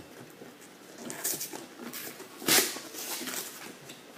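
Cardboard mailer boxes being handled and opened by hand: irregular rustling and scraping of packaging, with one louder, sharper rasp about two and a half seconds in.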